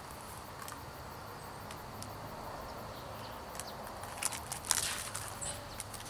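Quiet outdoor background hiss, then a few seconds in the rustle and short clicks of a picture book's pages being handled and turned over.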